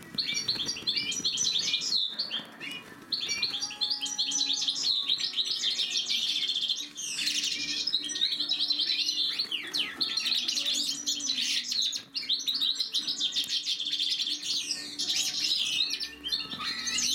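Major goldfinches (large European goldfinches) singing: a fast, near-continuous twittering of trills and chirps, with short breaks about two and twelve seconds in.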